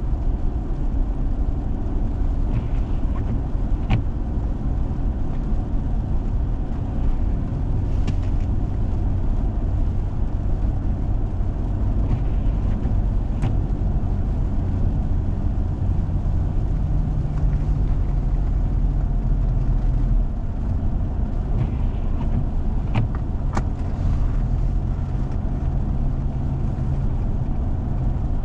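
Four-wheel-drive vehicle driving on a snow-covered road: a steady low engine and road drone, with a few sharp clicks.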